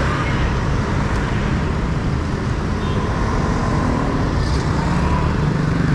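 Busy street traffic: a stream of motor scooters and cars passing close by, giving a steady mix of small-engine hum and tyre noise.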